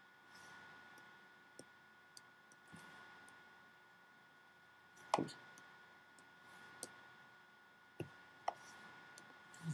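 Faint, scattered short clicks, about eight in all and irregularly spaced, the loudest about five seconds in, over quiet room tone with a faint steady high hum.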